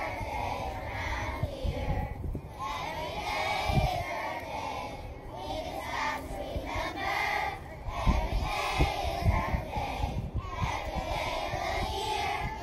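A group of young children singing together in unison, a whole class voicing a song at once.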